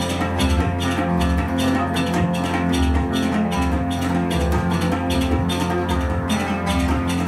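Live ensemble music: an oud plucked over sustained synthesizer tones from a Roland Juno-6, with tabla strokes keeping a quick, even rhythm and a low note pulsing steadily underneath.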